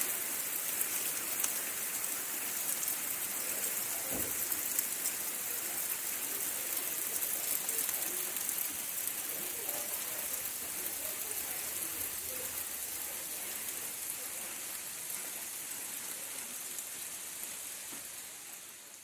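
Steady rain pouring down, a dense even hiss, fading out just before the end.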